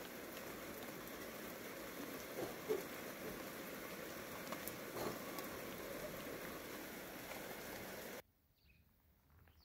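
Steady rain falling, an even hiss with a few faint drop ticks, that stops abruptly about eight seconds in.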